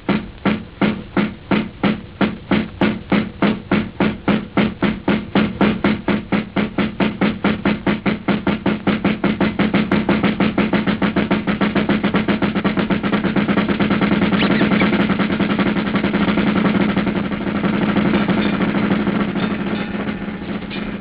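Early-1930s cartoon soundtrack music: a pulsing beat with drums that speeds up steadily until the strokes run together into one continuous sound about halfway through.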